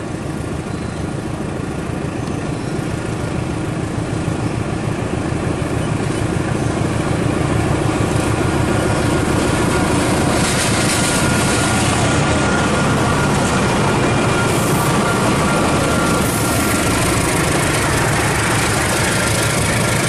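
GE CC206 diesel-electric locomotive running as it hauls a passenger train across a railway bridge. Its engine noise grows steadily louder over the first several seconds as it approaches, then stays loud, and a faint steady whine joins in during the second half.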